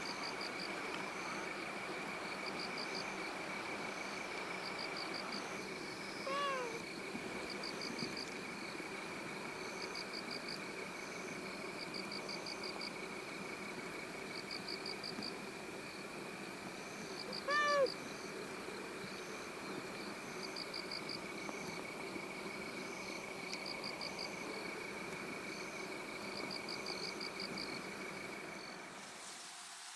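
Insects chirping: short trilled pulses repeating every couple of seconds over a steady high hum, with two short rising-and-falling animal calls, one about six seconds in and one near eighteen seconds.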